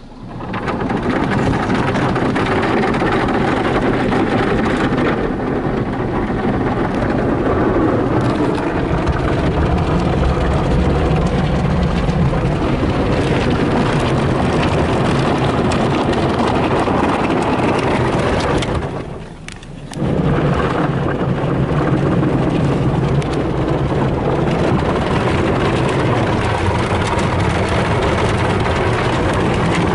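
Soft-touch automatic car wash working over the car, heard from inside the cabin: a dense wash of spraying water and cloth brushes slapping against the body and glass, over a low steady hum. It comes up in the first second and cuts out briefly about two-thirds of the way through before starting again.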